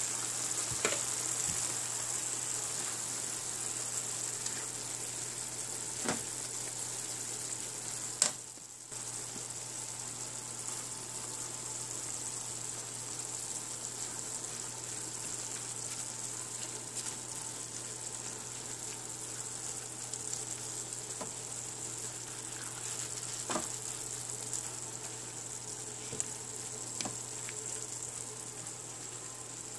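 Chicken and vegetable stir-fry sizzling steadily in a hot frying pan on high heat, with a spatula now and then knocking and scraping against the pan.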